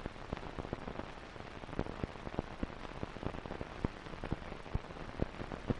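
Steady hiss with irregular faint crackling and clicks, the surface noise of an old film soundtrack, with no other sound standing out.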